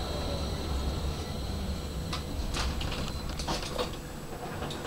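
Tram running slowly along the track, heard from inside at the front: a steady low rumble with a faint high whine that fades in the first half, then a series of short clicks and knocks from about two seconds in.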